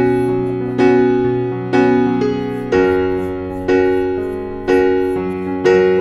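Background piano music: slow sustained chords, a new one struck about once a second and fading before the next.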